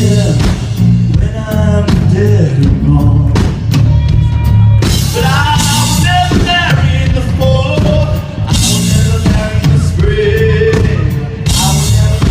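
Live band music: a drum kit with cymbal crashes and a steady bass beat under a lead melody line.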